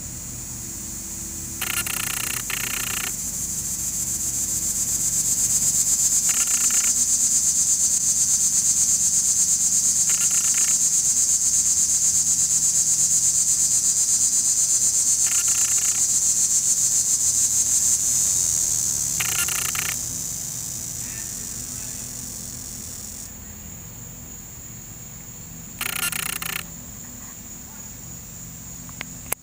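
A high, continuous insect buzz with a fast fine pulse that swells up over a few seconds, holds steady, then fades out about two-thirds of the way through.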